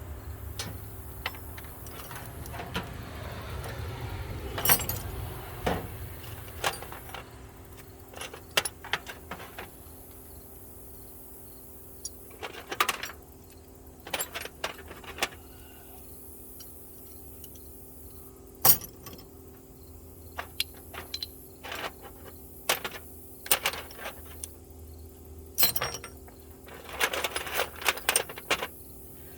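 Loose metal sockets and small hand tools clinking and clattering in irregular sharp clinks as they are picked through and sorted, over a faint steady hum.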